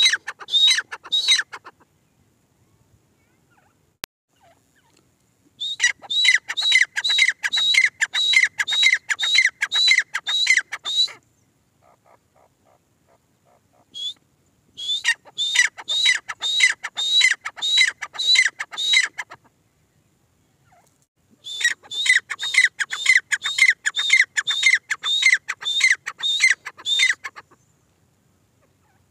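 Grey francolin calling: bouts of loud, shrill notes repeated quickly, about two or three a second. Each bout lasts about five seconds, with pauses of a few seconds between; four bouts in all, the first ending about a second and a half in.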